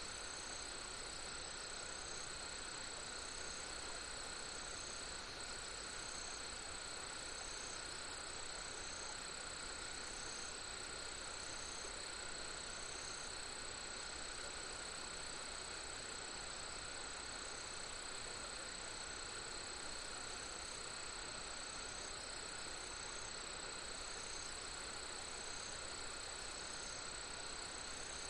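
Insects such as crickets calling steadily at several pitches, one of them chirping in short, regular pulses about four times every five seconds, over an even background hiss.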